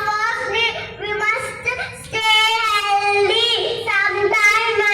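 A young child singing, with long held notes.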